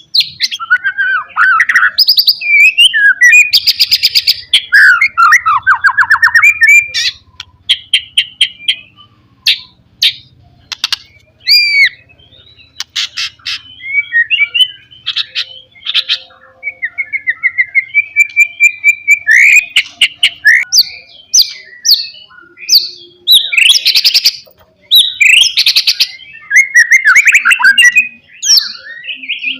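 White-rumped shama (murai batu) singing an insistent, combative song of varied whistles, fast trills and clicking notes, in loud bursts with short gaps. It is the kind of song used to provoke rival males into singing.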